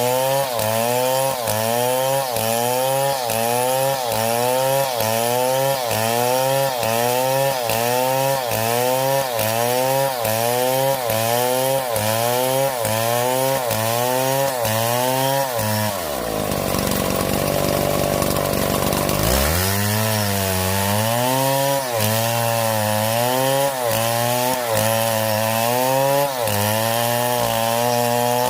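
A motorised saw running, its pitch rising and falling in a steady repeating cycle about every three quarters of a second. About two-thirds of the way through, the pitch sinks low for a few seconds, then climbs back into the same cycle.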